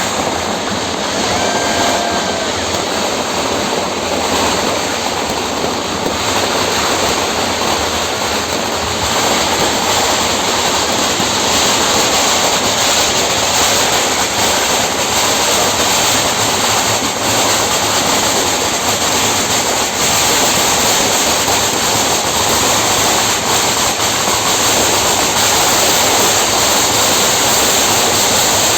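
Ground fountain firework spraying sparks with a continuous loud hiss, gradually getting louder.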